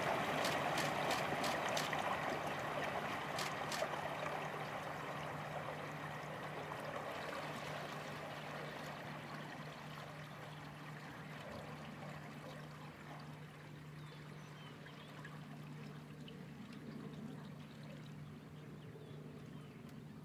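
Water splashing and trickling, gradually fading, with a few sharp clicks in the first few seconds and a steady low hum underneath.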